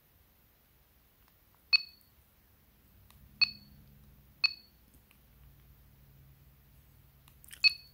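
A 70mai Smart Dash Cam Pro beeps at presses of its menu buttons: four short, high beeps, each made of two pitches together. The first comes about two seconds in and the last near the end.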